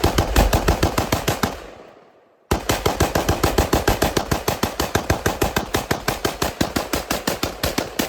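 Rapid gunfire from an AR-style rifle, evenly spaced at about seven shots a second. The first run fades out, then after a short silence a second run starts abruptly about two and a half seconds in and keeps going at the same rate.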